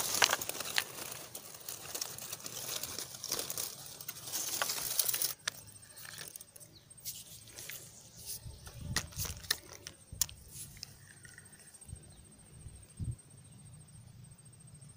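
Leaves and twigs of shoreline bushes rustling and crackling as a freshly caught fish is grabbed among them, for about the first five seconds. After that only scattered light clicks and a few soft knocks of handling.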